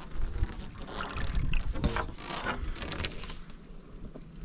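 Wind rumbling on the microphone over water lapping around a small boat, with a few short, sharper noises in the middle.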